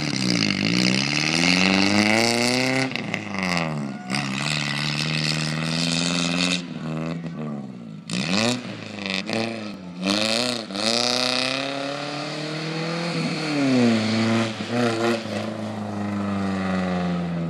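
Pickup truck engine revving hard as it drives a dirt course, its pitch climbing and then dropping sharply several times as the driver lifts off and gets back on the throttle.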